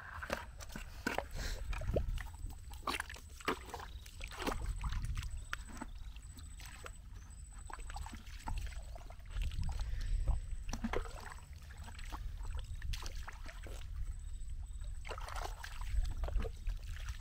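Bare feet squelching and sucking through soft wet mud in irregular steps, over a steady low rumble.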